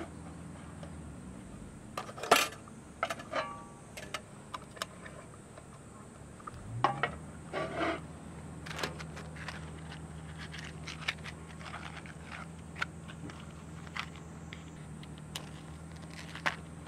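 Scattered light metallic clinks and knocks from a kerosene hurricane lantern being handled on a folding metal camp table, its wire guard and parts tapping, then a matchbox being handled and a match struck to light it.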